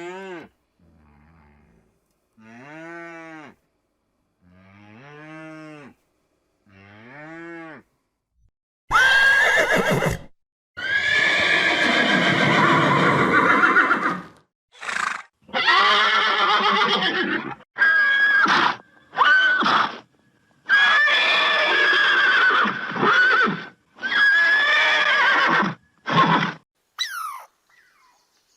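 Farm animal calls: four short, softer calls rising and falling in pitch, then a run of louder, longer calls over the rest of the stretch.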